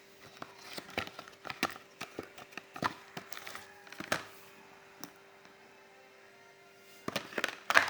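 Cough-syrup boxes and bottles being handled: scattered taps, clicks and knocks of cardboard and plastic, a quiet couple of seconds in the middle, then a quick cluster of clicks near the end.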